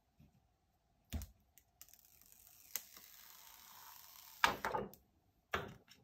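Thin plastic protective film being peeled off a tablet's glass screen: a tap, then a steady peeling hiss for about three seconds, then sharp crackles twice near the end as the film comes free and is handled.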